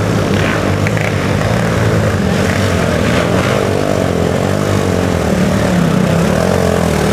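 Racing quad (ATV) engines running hard, a loud steady drone whose pitch wavers slightly.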